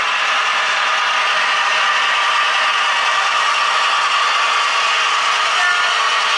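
Model train running steadily along the track: a continuous mechanical rattle of small wheels on the rails and the locomotive's gearing.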